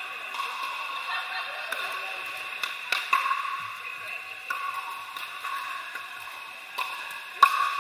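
Pickleball paddles hitting plastic balls on several courts in a large indoor hall: irregular sharp pops, the loudest near the end, over a steady hum.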